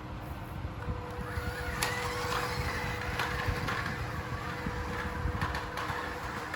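Small electric motor of a radio-controlled truck running with a thin steady whine, over a low rumble of wind on the microphone, with a few sharp clicks.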